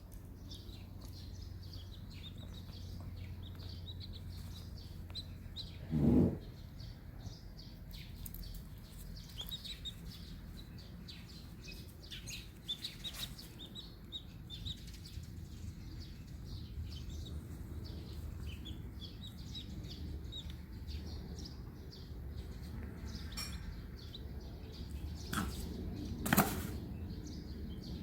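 Newly hatched chicks peeping, many short high chirps throughout. A brief louder low sound comes about six seconds in, and a sharp knock near the end.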